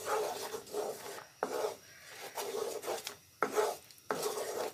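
A wooden spoon scraping and stirring a thick, sticky chocolate mixture around a metal pot. The mixture is cooking on low heat. The rasping strokes come unevenly, roughly one a second, with short pauses between them.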